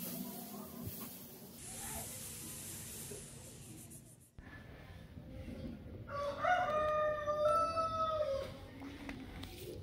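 A wooden knife handle being rubbed and burnished by hand with a fibrous pad, a soft scratchy hiss. After a cut about four seconds in, a long animal call with a few steps in pitch sounds for about two seconds and is the loudest sound.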